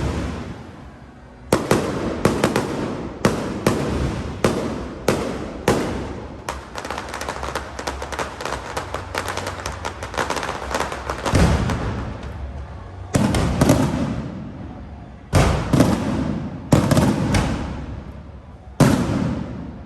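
Aerial fireworks shells bursting in quick succession: a string of sharp bangs, with dense crackling in the middle stretch and a few heavier booms spaced apart near the end.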